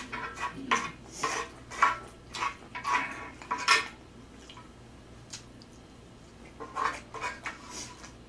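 A spoon scraping and clinking against a flat griddle pan as fried rice is scooped off its surface. The scrapes come in a quick run of short strokes for the first few seconds, stop for a while, then come again a few times near the end.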